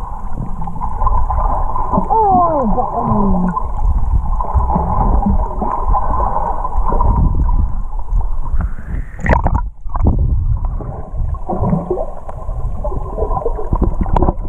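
Muffled underwater rumble and water noise heard through a GoPro's waterproof housing, with a few faint muffled voice-like sliding tones. Around nine seconds in a rushing sound rises and cuts off suddenly.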